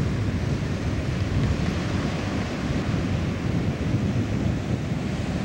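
Ocean surf breaking on the beach, a steady wash of noise mixed with wind buffeting the microphone.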